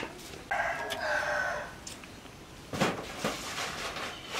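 A rooster crowing once, a held call of about a second and a half, followed by a sharp knock nearly three seconds in.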